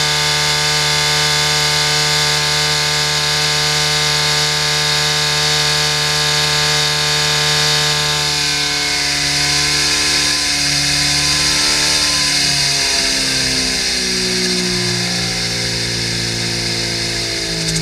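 Rotrex-supercharged 1293cc A-Series four-cylinder engine running hard on an engine dyno, held steady at about 4500 rpm. About halfway through its pitch starts to waver and sag a little.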